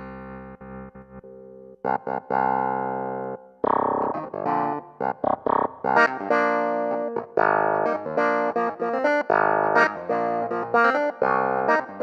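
Yamaha CP88 stage piano being played: a soft held chord, then louder chords from about two seconds in, moving into a busier passage of rhythmic chords and quick notes.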